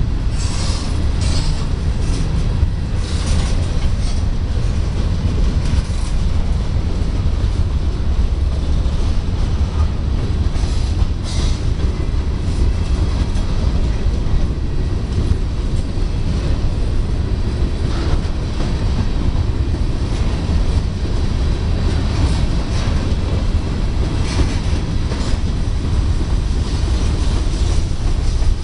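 Freight train of covered grain hopper cars rolling past with a steady, heavy rumble of wheels on rail. Brief clacks from the wheels come every few seconds.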